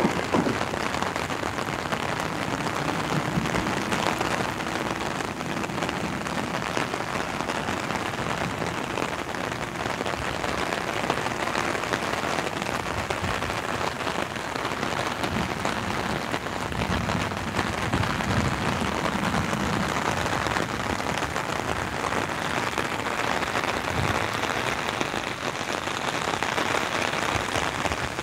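Steady rain pattering on an open umbrella held over the microphone.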